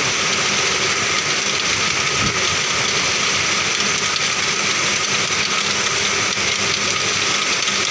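Feng Fan computerized flat knitting machines running together, a steady mechanical whir and hiss from the carriages working along the needle beds.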